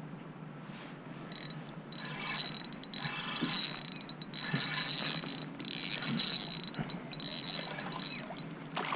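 Fishing reel whirring in about six short bursts, each up to a second long, with a high whine, while a small trevally is being fought.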